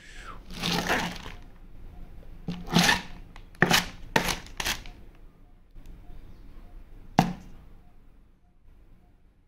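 A knife slitting and tearing a plastic courier bag: a run of short crackling rips, then one sharp click about seven seconds in.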